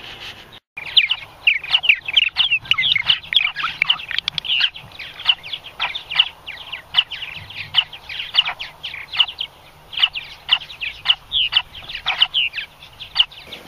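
Purple martin nestlings calling inside the nest gourd: a dense, fast stream of short, high chirps, many dropping in pitch, starting just under a second in. The calls are the begging of hungry young as a parent comes to the entrance hole to feed them.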